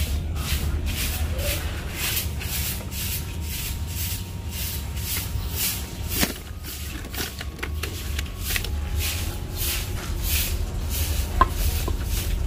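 A cloth wiping over the plastic case of an Amaron car battery in quick repeated strokes, about two a second, drying it off after its cells were refilled. There are a couple of sharp clicks, one about halfway and one near the end.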